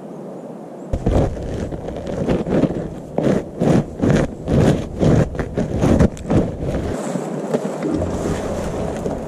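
Boots crunching on snow: about a dozen footsteps, roughly two a second, starting about a second in and stopping near seven seconds, over a steady hiss.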